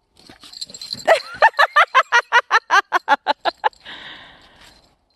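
German shepherd puppy giving a rapid run of high yips, about five a second for under three seconds, followed by a short breathy hiss.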